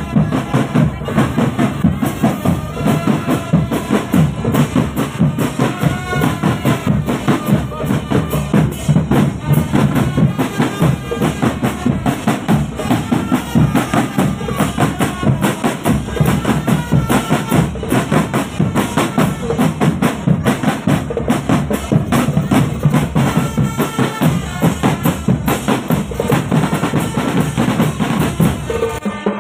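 Indonesian marching drum band playing a steady, driving marching beat on bass drums and snare drums, with a melody carried on top.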